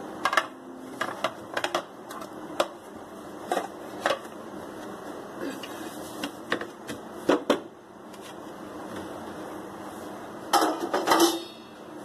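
Ceramic plate and metal baking tin clinking and knocking as the tin is turned out upside down onto the plate to release the cake. A quick burst of knocks and rustling near the end is the loudest moment.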